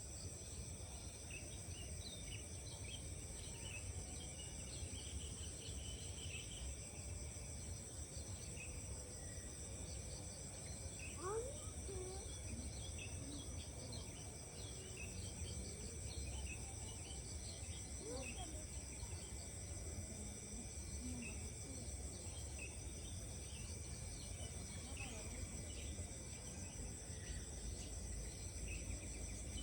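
Steady, continuous chorus of insects such as crickets singing high-pitched, with scattered short bird chirps and calls over it and a low rumble underneath.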